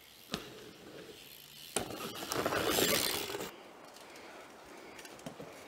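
Mountain bike on a dirt jump trail: a sharp clack about a third of a second in and another near two seconds, then a couple of seconds of tyres rushing over dirt with the bike rattling, loudest around the middle.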